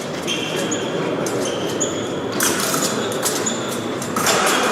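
Épée fencers' footwork: shoes squeaking and scuffing on the piste over steady hall noise, with two louder rushes of noise about two and a half and four seconds in.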